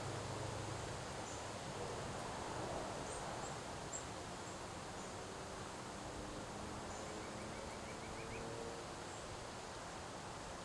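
Autumn windstorm blowing through trees: a steady rush of wind and rustling leaves, with a few faint, short, high chirps over it.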